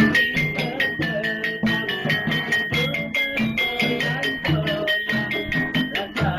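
Music with percussion, a steady beat and a repeating melody of pitched notes.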